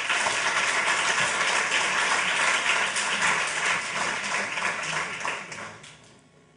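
Audience applause: dense clapping that dies away near the end.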